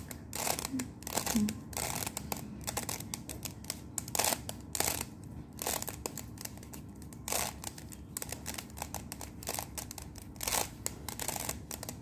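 Plastic 3x3 Rubik's cube being turned by hand, its layers twisting one after another in an irregular run of short clicks and scrapes as a solving algorithm is worked through.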